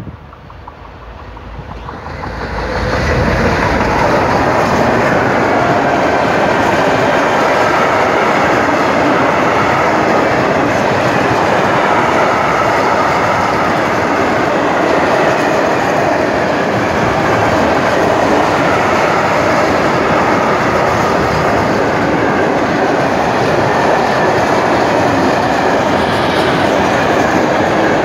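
Electric locomotive approaching and passing close by, the noise building over the first three seconds. It is followed by a long freight train of open coal wagons rolling past, a steady loud noise of wheels on rails.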